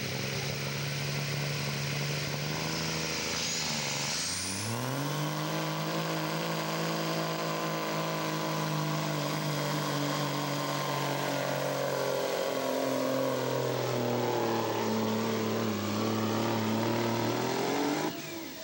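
Semi truck's diesel engine under full throttle pulling a weight sled. Its pitch dips about four seconds in as the load comes on, then climbs back with a high whistle rising, holds steady, and sags lower as the sled bears down. The engine cuts off abruptly just before the end, as the throttle is shut at the end of the pull.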